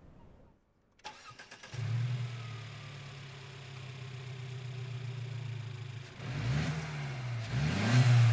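Mercedes-Benz SLC 300's 2.0-litre turbocharged four-cylinder engine starting. The starter turns about a second in, and the engine catches with a brief flare, then settles into a steady idle. It is then revved twice, and the second rev, near the end, is the loudest.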